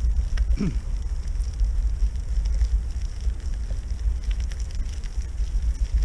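Wind buffeting the microphone: a low rumble that rises and falls unevenly.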